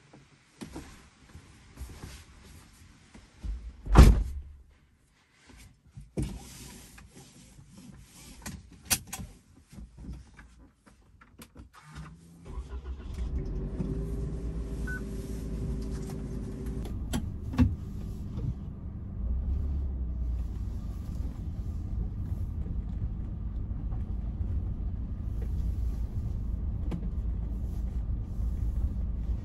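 Scattered clicks and knocks with one loud thump about four seconds in, then about twelve seconds in a kei car's small engine, a Suzuki Spacia's 660 cc three-cylinder, starts and runs steadily.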